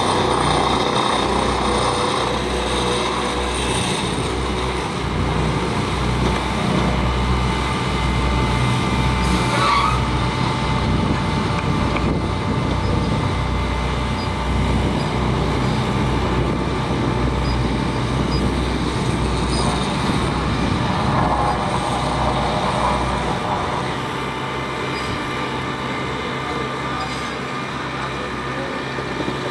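LeeBoy asphalt paver's engine running steadily under load as the machine lays asphalt, with a heavy low rumble and a brief sharp noise about ten seconds in. The deep rumble eases off somewhat near the end.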